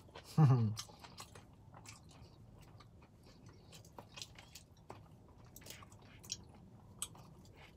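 A person chewing a mouthful of pad thai noodles, with scattered soft mouth clicks and smacks.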